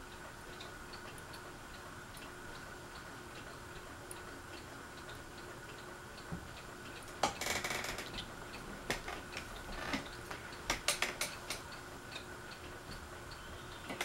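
Fasco Vanity Fair ceiling fan running on medium with a steady hum and a light, regular ticking. About halfway through comes a brief rustle, then a few sharp knocks.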